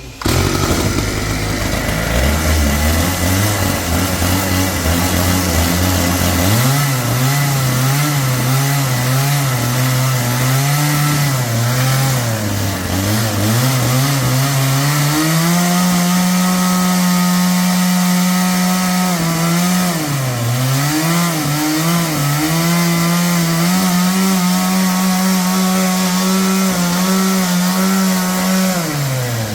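Engine-driven saw cutting a log. It starts abruptly, climbs in pitch over the first several seconds, then runs steadily at high speed, dipping briefly twice.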